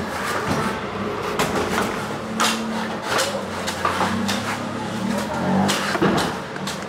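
Sharp knocks of a large knife chopping into coconuts, struck unevenly about once a second, over a steady low background din.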